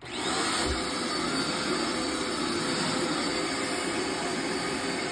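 Dirt Devil Power Max vacuum cleaner switched on: the motor starts abruptly with a short rising whine as it spins up, then runs steadily at full speed.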